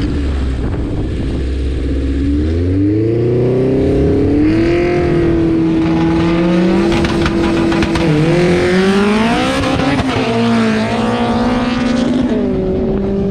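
Car engine accelerating hard, its pitch climbing and then holding at high revs, with drops in pitch about eight and twelve and a half seconds in, like gear changes.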